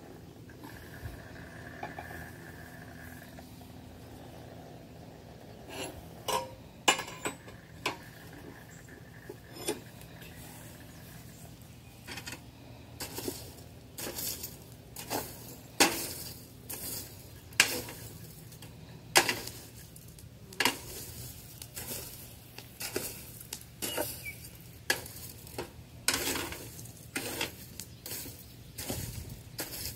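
Blacksmith's hammer striking iron on an anvil: a few scattered blows, then steady hammering at about one blow a second, with a steady low hum underneath.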